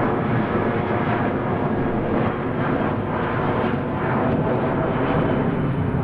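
Jet airliner flying, its engines making a steady, even noise with no rise or fall.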